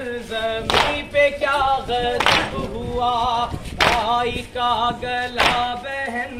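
Group of men chanting a noha, a Shia Muharram lament, in unison. Four loud, sharp chest-beats (matam) in time with the chant land about every one and a half seconds.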